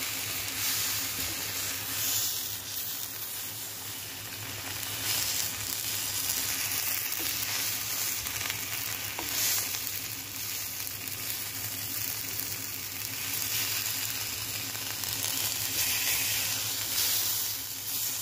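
Oiled, salted tomato halves sizzling steadily on a hot tawa, with a wooden spatula scraping now and then as they are turned over.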